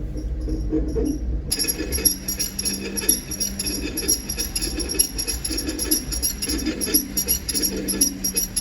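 Rhythmic metallic scraping and jingling from a Mitsubishi Minicab van's brake, the sign of pads worn down to the metal or a brake pad come adrift. About a second and a half in, a higher metallic ringing joins abruptly and carries on.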